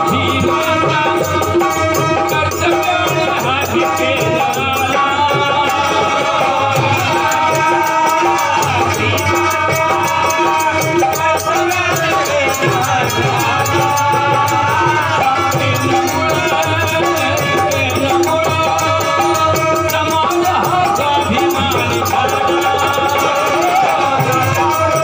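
Live devotional folk music: a harmonium playing steady chords under a man's singing voice through microphones, with rattling hand percussion keeping time.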